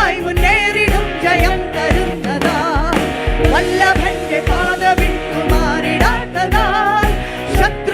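Worship song: a voice singing a wavering melody over a band with a steady kick-drum beat.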